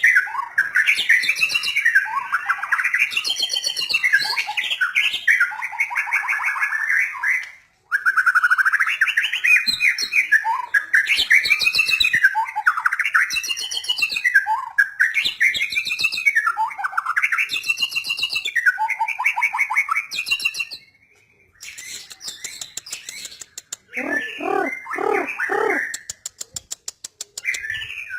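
White-rumped shama (murai batu) singing: long runs of varied, sweeping whistled phrases. The song breaks off suddenly about eight seconds in and pauses again around twenty-one seconds. Near the end come a few lower repeated notes and a fast clicking rattle.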